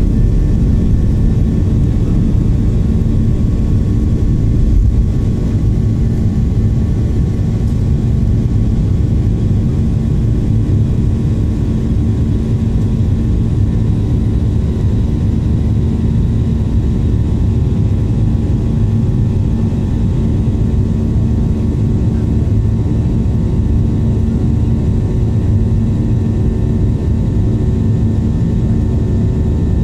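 Cabin noise of a Boeing 737-800 at take-off thrust, its CFM56-7B turbofans running with a steady low rumble and several steady hums through the take-off roll and initial climb. The rumble eases slightly about five seconds in.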